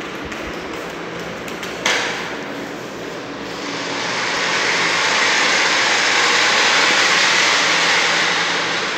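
Battery-powered remote-control toy car running across a concrete floor, its small electric motor and wheels making an even buzzing hiss that swells and then eases off. There is a sharp knock about two seconds in.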